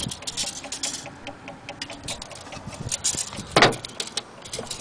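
A hand handling the wooden case of a wall clock: irregular rustles and small clicks, with one louder knock about three and a half seconds in.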